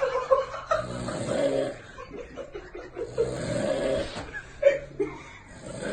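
Snoring: three long snores, each about a second, coming roughly every two and a half seconds, with a short sharp sound between the second and third.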